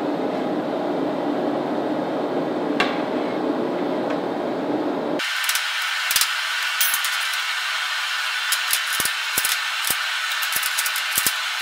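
A steady rushing shop noise with a single click, then, about five seconds in, a sudden change to a brighter sound full of quick, irregular strikes: a hammer beating a red-hot steel bar around a round steel puck used as a bending mandrel.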